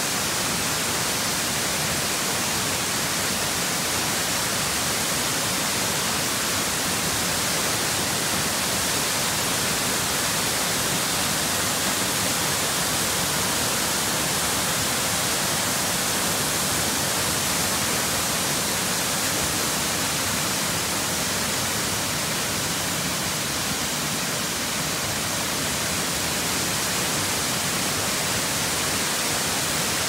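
Waterfall cascading down stepped rock ledges: a steady, unbroken rush of falling water, heavy in hiss.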